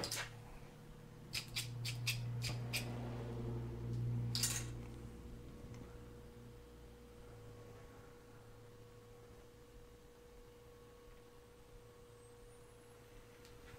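Low machine hum in a small shop, fading after about five seconds, under a faint steady high tone, with a few light clicks and a short scrape about four seconds in.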